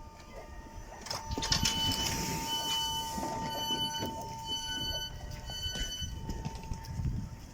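A train standing at a station platform, with a steady hum and a series of short high beeps, about two a second, over a low rumble.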